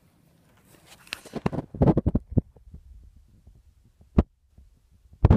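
Handling noise from the recording camera as it is picked up: a burst of rubbing and close knocks about a second in, then single dull thumps about a second apart as it is carried.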